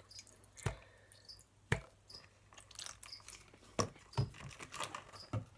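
A handful of light clicks and knocks from a plastic saline-solution bottle being squeezed and handled over a plastic mixing bowl.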